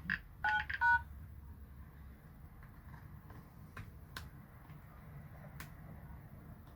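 A plastic opening tool prying around a phone's back cover, giving a few faint, sharp clicks as the cover's clips release, spread over several seconds. In the first second there are a few short two-tone electronic beeps.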